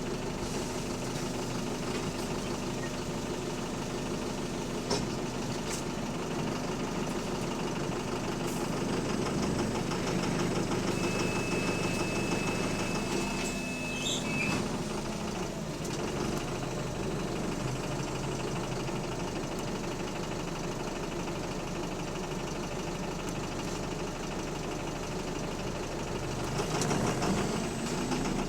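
Bus engine running with a loud rod knock, the sign of a worn connecting-rod bearing. A thin, steady high tone sounds for about three seconds around the middle.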